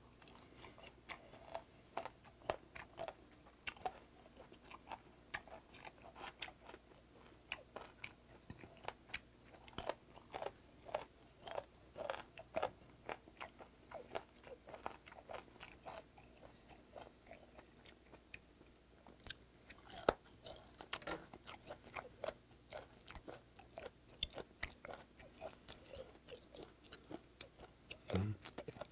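Chewing fermented skate (hongeo), its cartilage crunching in many quick, irregular clicks.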